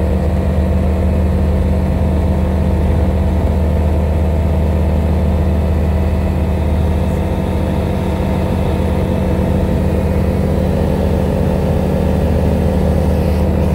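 Light single-engine propeller aircraft's piston engine and propeller running at takeoff power, heard from inside the cockpit: a loud, steady drone through the takeoff roll and lift-off.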